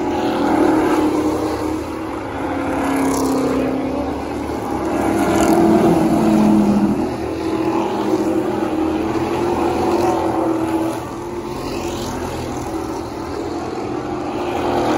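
Street stock race cars running laps on an oval track. Their engines are loud and steady, and swell and fade as the pack goes by, peaking about half a second in and again around five to six seconds.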